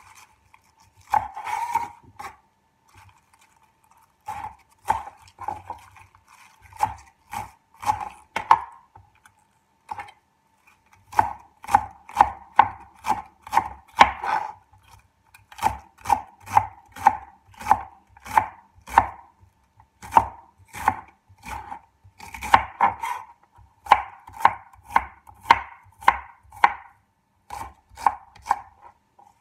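A large kitchen knife slicing bok choy thinly on a wooden cutting board: repeated sharp knife strikes against the board, a few at a time with pauses at first, then a steady run of about one to two cuts a second.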